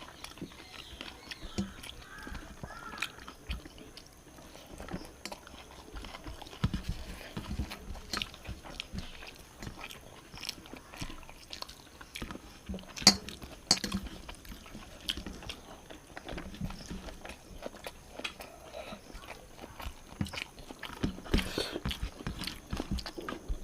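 Close-miked eating by hand: rice and fish curry being mixed, picked up and chewed, with irregular small clicks and wet mouth sounds, the sharpest about halfway through.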